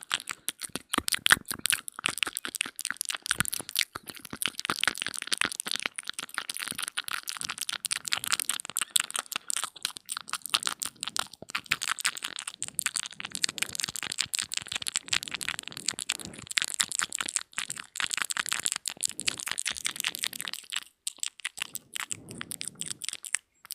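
ASMR mouth sounds close to the microphone: a fast, continuous run of wet mouth clicks and smacks, many per second, thinning out near the end.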